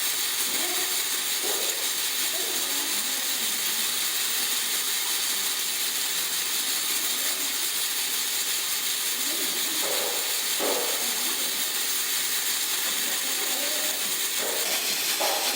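A steady, even hiss that holds at one level throughout, with a few faint voices under it.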